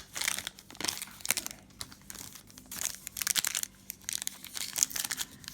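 A foil trading-card pack wrapper crinkling and rustling as it is handled and torn open, with irregular crackles and sharp clicks.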